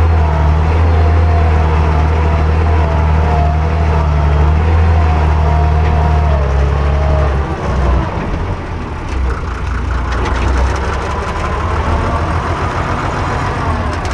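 Tractor engine running steadily under load while pulling a chisel plow. About halfway through, the engine note drops and it runs on more quietly.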